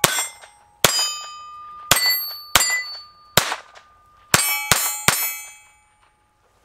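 Eight .22 LR shots from a Walther P22 pistol, each followed by steel targets ringing as they are hit. The shots come at an uneven pace, with the last three quicker, about four to five seconds in.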